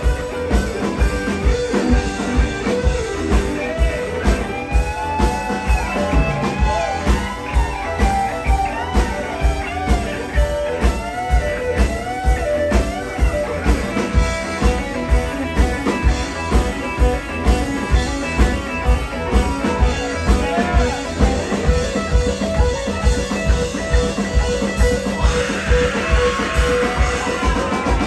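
Live blues-rock band playing a driving shuffle: an electric guitar plays a lead with bent notes over a steady drum-kit beat. Near the end the sound turns brighter and noisier.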